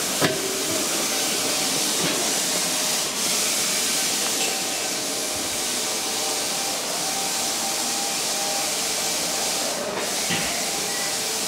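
Steady hissing background noise of a railway station, with a short click just after the start and another about ten seconds in.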